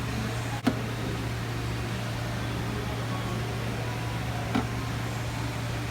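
Steady low machine hum, with a sharp click about two-thirds of a second in and a fainter click near the end.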